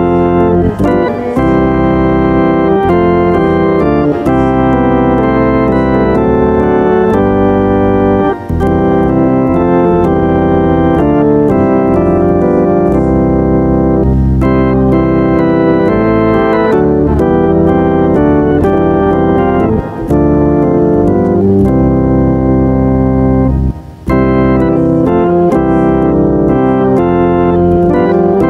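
Church organ playing full, held chords that change every second or so, with a few short breaks between phrases.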